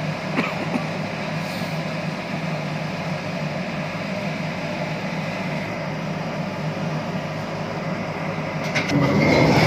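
Diesel locomotive engine running steadily with a low hum and a few faint clicks. About nine seconds in it grows louder, with a high steady squeal coming in.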